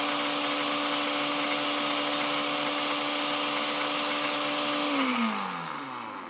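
Electric blender grinding fenugreek seeds and cloves into a powder, its motor running at a steady high speed. About five seconds in it is switched off and winds down, the hum falling in pitch as it fades.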